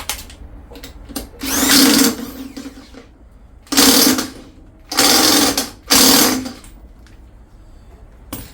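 Impact wrench doing up a 19 mm nut on the scooter's CVT pulley, in four short bursts of hammering.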